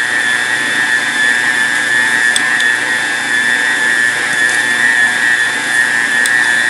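Electric stand mixer running steadily with a high motor whine, its dough hook kneading whole-wheat bread dough in a centre-post bowl.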